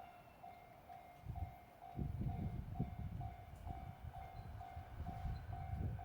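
Japanese level-crossing alarm ringing, a steady pulsing tone about twice a second, while a train comes through the crossing, its rumble and wheel clatter starting about a second in and growing loud from about two seconds in.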